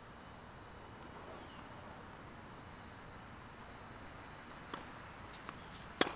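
A tennis rally starting: a faint racket-on-ball hit from the serve, a ball bounce, then a much louder racket hit near the end, over a steady background hiss.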